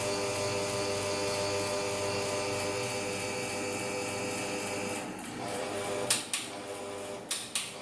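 Bajaj Regal Underlight four-blade ceiling fan motor running with a steady whining hum and a faint regular ticking. The sound changes about five seconds in, and there are sharp clicks about a second later and twice near the end.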